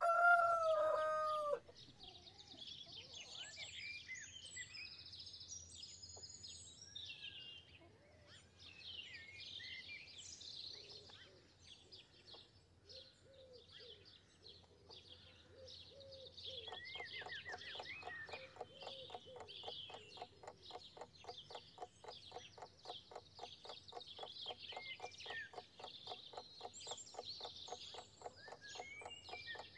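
Morning farmyard and bird ambience: a rooster crows once at the start, loudest of all, then small birds chirp and call steadily. About halfway through, a fast, even ticking joins them.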